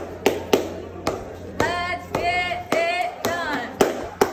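Dance track: a steady beat of sharp clap-like hits, with a high voice singing a few drawn-out notes in the middle.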